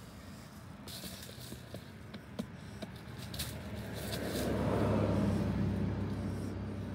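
Dry leaves and pine needles crackling and rustling under bare feet, in scattered sharp crackles. About four seconds in, a louder, deep rushing noise swells up, peaks and slowly eases off.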